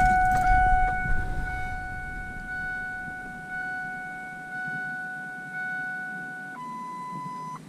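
A steady electronic beep tone, one pitch held for several seconds, then a higher tone about six and a half seconds in that cuts off near the end, from the electronics in a truck cab as they power up.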